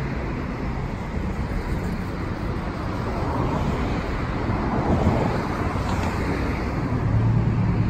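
Steady road traffic noise: a continuous hiss and rumble of passing vehicles, with a low engine hum growing near the end.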